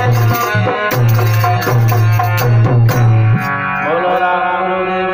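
Harmonium and dholak playing a Rajasthani devotional bhajan, with steady drum strokes under held reed tones. About three and a half seconds in the drumming stops, and a man's voice slides up into a long held sung note over the harmonium.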